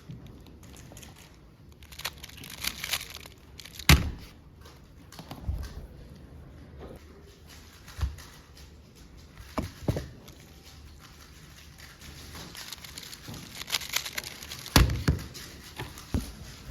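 Puzzle cube being handled and turned: irregular bursts of small plastic clicks, with a few sharper knocks, the loudest about four seconds in and near the end.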